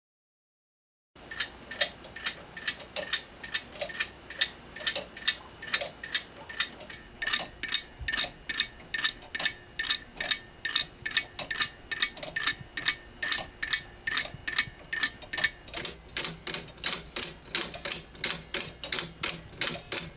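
3D-printed PLA grasshopper-escapement pendulum clock ticking at a steady, even rate as the grasshopper pallets catch the escape-wheel teeth. The ticking starts about a second in, after a moment of silence.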